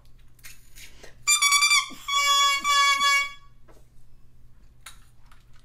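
An oboe reed crowed on its own, with no instrument: two short, high-pitched squawking blows, the second longer. The high crow comes from the reed being very short.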